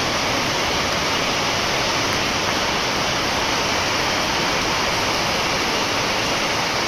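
Heavy rain pouring steadily onto wet pavement.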